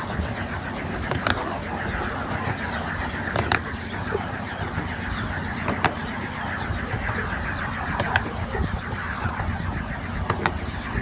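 A 7¼-inch gauge miniature railway train running along the line, heard from its rear carriage: a steady rumble of wheels on rail, with a sharp click about every two seconds as the wheels cross rail joints.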